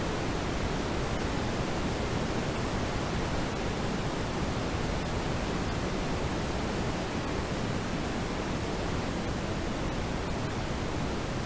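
Steady road and tyre noise inside a moving car, picked up by the dashcam's microphone.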